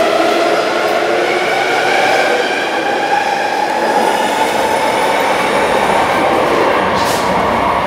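A Ma On Shan Line SP1950 electric train running along the platform, its traction motors giving a whine made of several tones that slide in pitch, over steady wheel rumble. A short hiss comes near the end.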